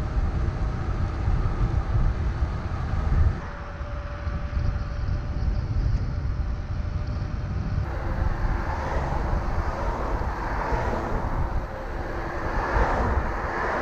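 Wind rushing and rumbling over the microphone of a camera carried on a bicycle riding along an asphalt road. The noise changes abruptly twice, at about three and a half and eight seconds in.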